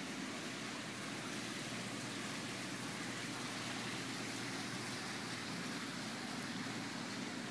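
Steady background hiss and low hum of room noise, even throughout, with no distinct events.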